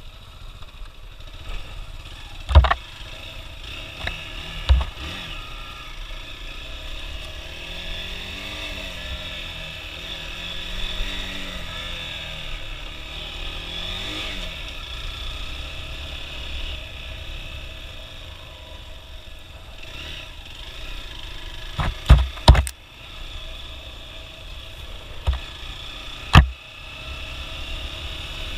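Hero XPulse 200 motorcycle engine running under the rider on a rough trail, its pitch rising and falling in the middle stretch as the throttle changes. Several sharp knocks cut through it, the loudest a quick cluster about 22 seconds in, with others near 3, 5 and 26 seconds.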